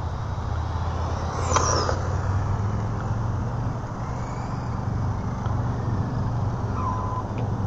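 Tamiya TT02 radio-controlled car on a high-speed run: a brief motor whine about one and a half seconds in, dropping in pitch as the car passes, over a steady low rumble.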